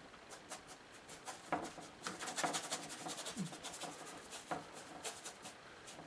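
Acrylic paint being scrubbed onto a painting board in quick, scratchy rubbing strokes, busiest from about two seconds in.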